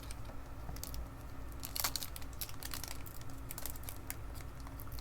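Foil wrapper of a Pokémon booster pack crinkling with irregular crackles as it is handled and opened, the loudest crackle about two seconds in.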